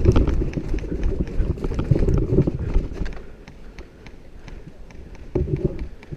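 A player running with heavy, thudding footsteps and rustling gear, loudest over the first few seconds, then slowing. Scattered sharp clicks run through it, with another short flurry of steps a little after five seconds.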